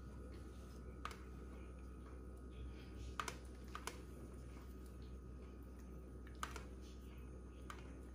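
A handful of faint, light clicks of a stainless-steel ring mould shifting against an aluminium pan as zucchini slices are pressed into it by hand, over a low steady hum.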